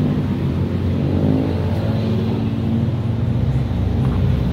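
A motor vehicle engine running steadily at idle with a low drone.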